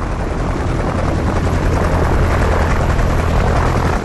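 Helicopter in flight: a loud, steady rotor and turbine noise with a fast, even beating from the rotor blades.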